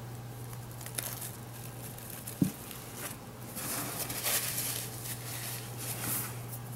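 Rustling and light handling noises, with a couple of sharp clicks and a brief low thump about two and a half seconds in, over a steady low hum.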